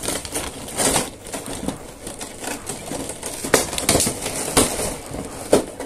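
Plastic and cardboard packaging of a boxed action figure being handled and pulled open: continuous crinkling and crackling with several sharper cracks.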